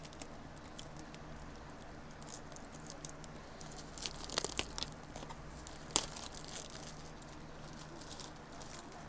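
Packaging being torn and crinkled open by hand, with scattered crackles that thicken near the middle and a single sharp click about six seconds in.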